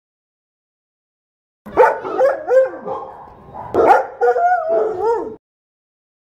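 A dog barking in two quick runs of barks, starting nearly two seconds in, the second run about four seconds in, then stopping abruptly.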